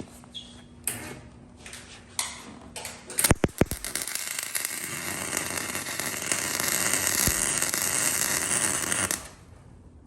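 MIG welding arc from a Miller Deltaweld 302 with a 22A wire feeder, run without shielding gas. It strikes with a few sharp cracks, then crackles and hisses steadily for about six seconds before cutting off suddenly. The heat is set a little hot. A few clicks and knocks come before the arc starts.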